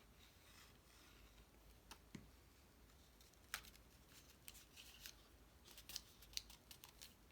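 Faint, scattered light clicks and taps of cardstock pieces being handled and glued, with a few sharper ticks in the second half.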